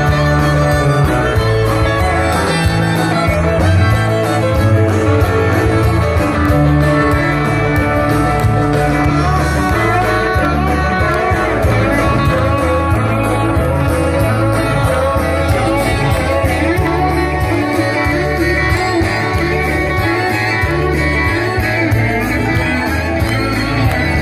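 Live country band playing loudly through outdoor PA speakers, guitars over a steady pulsing bass line, heard from within the crowd.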